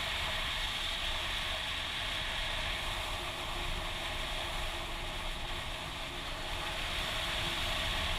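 Steady wind rush and road noise on a BMW K1200S moving at speed, heard through a rider-mounted camera microphone, with the bike's inline-four engine only faint beneath.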